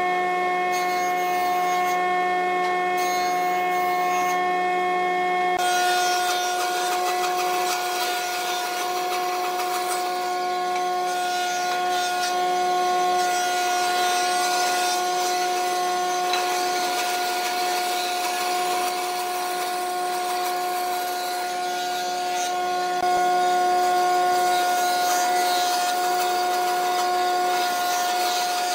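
Wood lathe running steadily with a motor hum, while a turning tool or abrasive rasps against the spinning wood. The rasping grows fuller about six seconds in.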